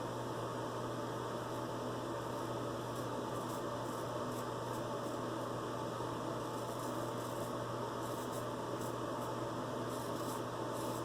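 Steady background hiss with a low hum, over which a vintage George Wostenholm & Sons straight razor makes faint short scrapes as it cuts stubble. The strokes come in quick runs, more often in the second half.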